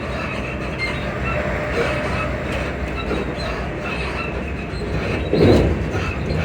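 Class 334 electric multiple unit running, heard from inside the carriage: a steady running rumble with short high squeaks and creaks from the suspension. A louder thump comes about five and a half seconds in.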